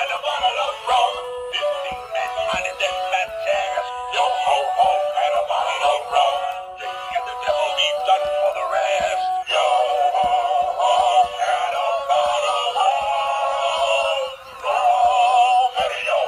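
Animated Halloween plush dog toy singing a song through its small built-in speaker: a thin, tinny electronic voice over music with no bass.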